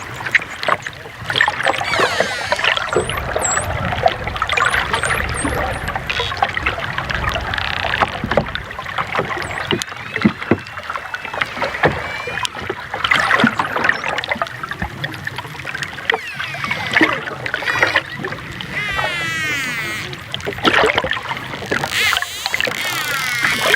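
Dolphins clicking and whistling: rapid trains of clicks throughout, with a few quick rising whistles high up about three seconds in and a wavering, warbling whistle around twenty seconds in.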